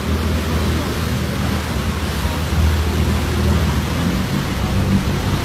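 A boat's engine drones steadily under a constant rush of wind and water.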